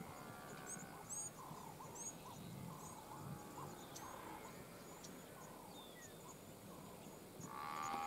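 Faint calls from a grazing Cape buffalo herd and birds: a run of short calls about two a second, small high chirps above them, and a louder call rising near the end.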